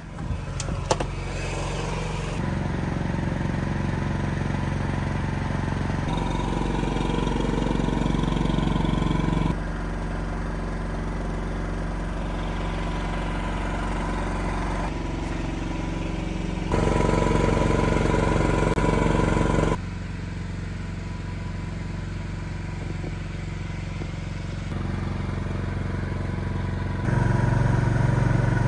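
Standby generator's engine running steadily at constant speed while it carries the building's electrical load. Its loudness and tone change in sudden steps several times, and there are a few clicks about a second in.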